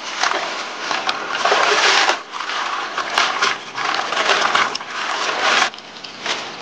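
Bunches of leafy mustard greens plunged and shaken in a stone water trough, splashing in repeated bursts about a second long.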